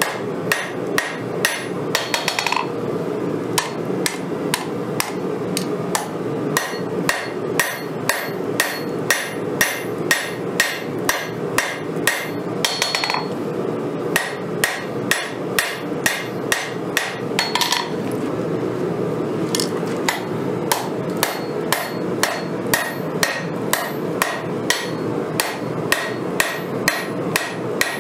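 Hammer forging a 5160 steel knife blank on an anvil: steady blows about two a second, each with a bright metallic ring, over a constant background rush.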